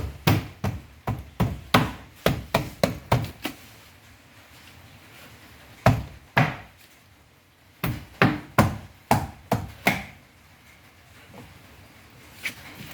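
Door trim panel being struck to seat it on the door, a string of sharp knocks coming in quick runs, several a second for the first few seconds, again about two thirds of the way through, with single knocks between.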